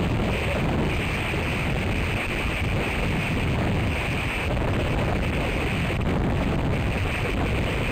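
Strong wind buffeting the microphone and blowing through pine boughs: a steady rumbling roar with a hiss that swells and fades in gusts.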